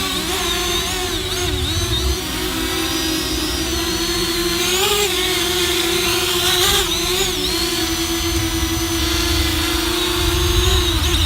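Parrot Anafi quadcopter drone flying close by, its brushless outrunner motors and propellers giving a steady whine that wavers and bends in pitch as it corrects itself. The pitch shifts abruptly near the end.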